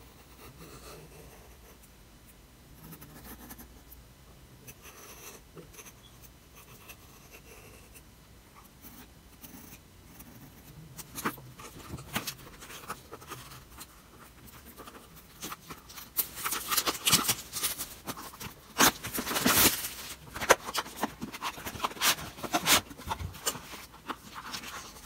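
A hobby knife scratching along the seal of a cardboard headphone box, then cardboard rustling, sliding and scraping in the hands with scattered clicks as the inner box is worked out of its sleeve, louder in the second half.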